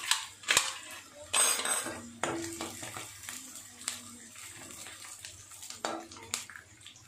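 Perforated metal skimmer clinking and scraping against a metal kadhai as garlic and onion are stirred in, with several sharp clinks and a short rustling scrape about a second and a half in.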